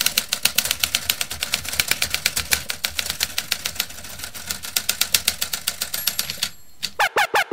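Typewriter keys clacking rapidly as a typing sound effect, about eight strokes a second, then stopping. Near the end, loud stuttering electronic tones start, sliding down in pitch.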